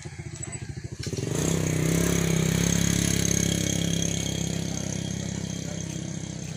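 A motorcycle engine going past close by: it swells quickly about a second in, holds loud for a couple of seconds, then slowly fades away.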